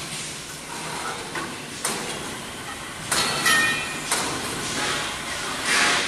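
Galvanized steel pipes knocking and scraping against each other and the container as a crane-hung bundle is pushed into a shipping container, over steady workshop noise. There are a few sharp knocks, a brief metallic ring about three seconds in, and a louder scrape near the end.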